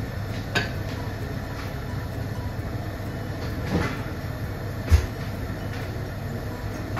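Pot of soup broth heating on a gas stove burner: a steady low rumble, with a few light clicks and one short thump about five seconds in.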